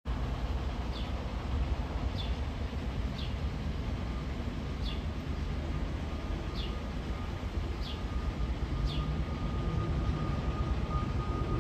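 Distant jet engine rumble of an Airbus A320-251N (CFM LEAP-1A engines) climbing out after takeoff, with a faint steady whine coming in about halfway. A bird's short high chirps repeat roughly once a second over it.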